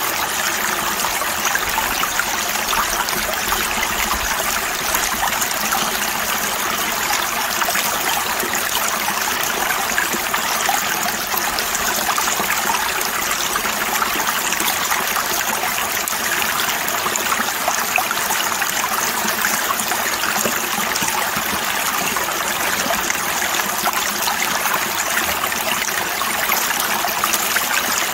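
Creek water rushing steadily through a metal sluice box and spilling off its end. The flow is heavy and turbulent, which the prospector believes is too strong and is washing the fine gold out the end.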